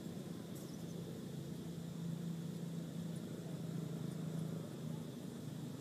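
A steady low hum that swells slightly a couple of seconds in.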